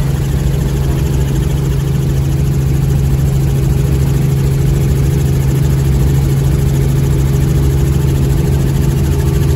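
Helicopter in flight heard from inside the cabin: a loud, steady drone of engine and rotor with a strong constant low hum.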